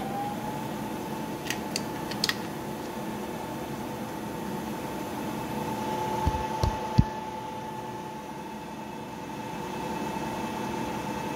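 Vertical milling machine spindle running with a steady whine that rises in pitch right at the start as the speed is turned up, then holds level. A few light clicks early on and a couple of dull knocks about six to seven seconds in.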